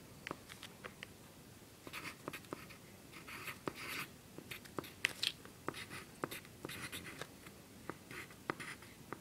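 Handwriting on grid paper: short scratchy strokes of the tip on the page with small sharp taps, coming in irregular clusters as numbers and a fraction are written out.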